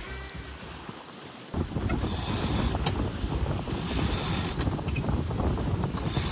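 Wind buffeting the microphone from about a second and a half in. Over it, a sailboat's cockpit sheet winch is being cranked, its ratchet giving three short bursts of clicking about two seconds apart.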